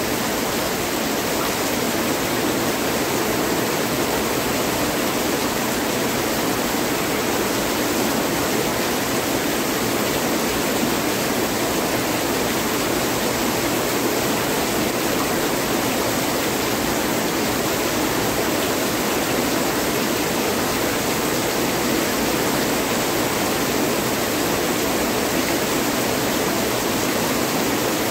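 Heavy rain pouring down steadily, a dense unbroken hiss.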